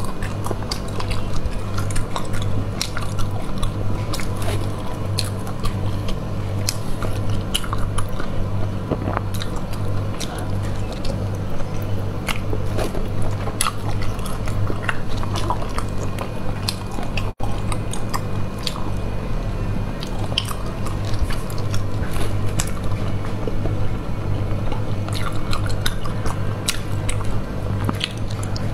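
Close-miked eating of sea snails in sauce: wet chewing and sucking, with many short clicks as the meat is pulled from the shells. A low pulsing hum runs underneath.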